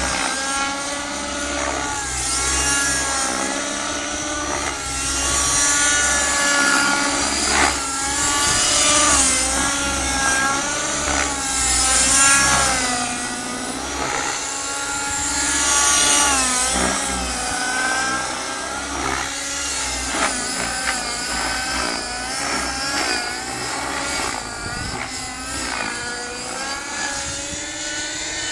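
Align T-Rex 600 Nitro model helicopter flying aerobatics: its two-stroke glow engine's whine and the rotor blades' swish, the pitch rising and falling again and again as it manoeuvres.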